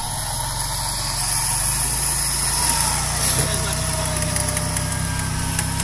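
Off-road 4x4's engine running at low revs in the mud, getting a little louder about a second in and easing back after about three seconds, with a faint tone sliding slowly down in pitch near the end.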